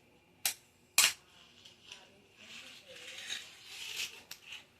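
Fingerboard doing tricks on a hard surface: two sharp clacks of the board about half a second and one second in, then about two seconds of the little wheels rolling with a soft rasp, and a lighter click near the end.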